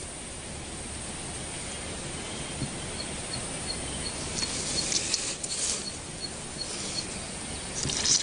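Outdoor nature ambience with a steady hiss. About three seconds in, a small creature repeats a short high chirp about four times a second for a second and a half. Brief rustling bursts come around the middle and again near the end.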